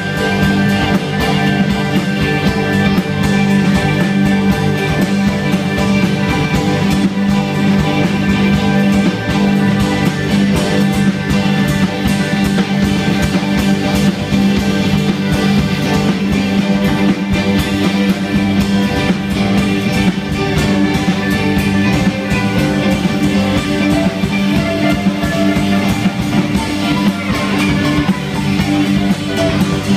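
Live band playing a dense instrumental passage, with electric guitar, keyboards, bass and drums, running steadily without a break.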